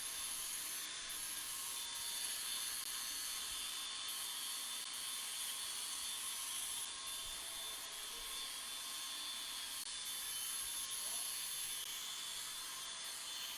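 Steady hiss of a TIG welding arc running a root pass on duplex stainless pipe, even and unbroken throughout.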